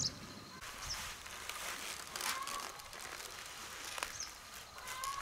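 Footsteps and rustling through grass and vegetation, with a few short, high bird chirps over the top.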